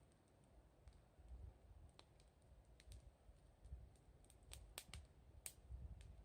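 Wood fire crackling faintly: scattered, irregular sharp pops and ticks, a few louder ones near the end, over a faint low rumble.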